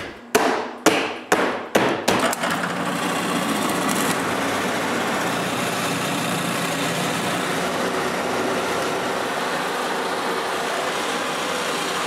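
A few sharp knocks in the first two seconds. Then a General International benchtop drill press runs steadily as its small bit bores holes through a paper pattern into wood.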